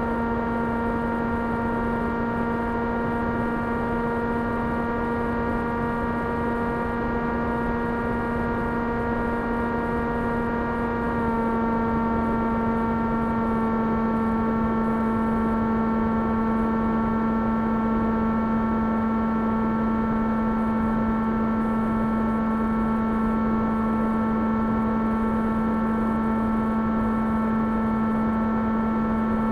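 Electric brushless motor (2300KV) and propeller of an S800 FPV model plane running at steady throttle, a constant pitched hum. About eleven seconds in the pitch drops slightly and it gets a little louder.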